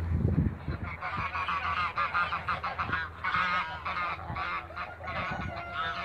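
African and Toulouse geese honking, many short calls repeated and overlapping from about a second in. A brief low rumble at the very start.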